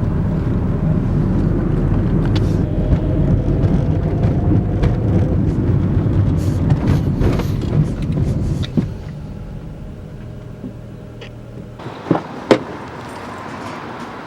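Car engine and road noise heard from inside the cabin while driving, a steady low rumble that drops to a much quieter hum about nine seconds in. Two short knocks near the end.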